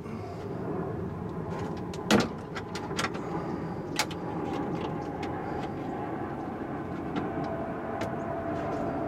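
A handful of sharp clicks and knocks from hand work on a car door's lock mechanism, clustered in the first half with the loudest about two seconds in. Behind them is a steady low background rumble, joined by a faint steady hum about halfway through.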